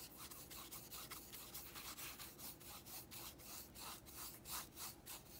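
Paintbrush loaded with acrylic paint stroking across a small canvas, faint quick back-and-forth brushing several strokes a second.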